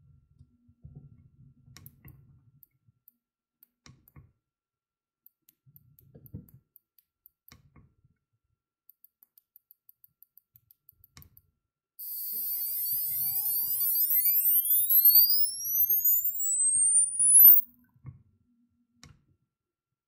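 Piezo humidifier disc driven by an IRF640N MOSFET H-bridge giving off a high electronic whine. The whine sets in suddenly about twelve seconds in, its tones glide steadily upward as the drive frequency is turned up, and it cuts off abruptly after five or six seconds. Before it there are only faint clicks and a low hum.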